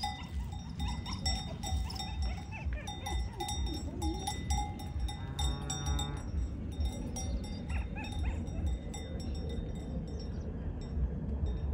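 Cowbells on a herd of Brown Swiss cows clanking irregularly as the cattle walk along the track, dying away after about nine seconds. One short animal call comes about five seconds in.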